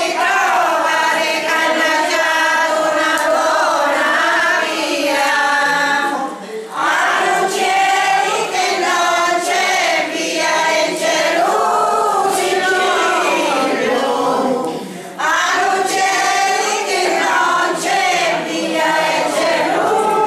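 A group of older voices singing a traditional folk song together, unaccompanied, led by a woman singing into a microphone. The song breaks off briefly twice, about six and fifteen seconds in.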